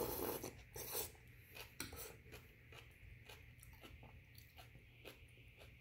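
A person eating chicken rice porridge from a metal spoon: a slurp of porridge off the spoon in the first second, then soft chewing and mouth sounds with a scattering of small clicks.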